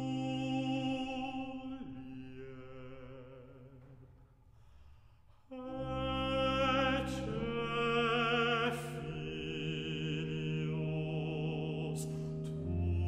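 Sacred classical music for organ and operatic solo voice. A held chord fades almost to silence, then about five and a half seconds in the organ re-enters with deep bass under a solo voice singing Latin with wide vibrato.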